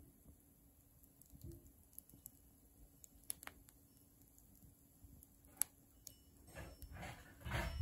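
Embers of a twig and brush bonfire crackling faintly, with scattered sharp pops, one louder about five and a half seconds in. Near the end a short rushing hiss rises over the crackle.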